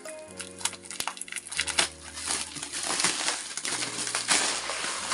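Scissors cutting through black plastic wrap and packing tape on a cardboard parcel: dense crinkling and crunching of plastic and cardboard with many small snips and clicks.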